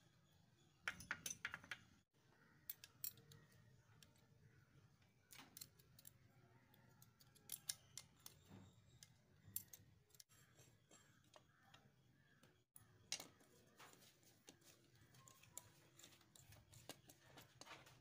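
Faint scattered clicks and light metallic taps from hands and small tools handling a Honda Activa's aluminium transmission case cover while its oil seal is fitted. Clusters of quick sharp taps come about a second in and again around thirteen seconds.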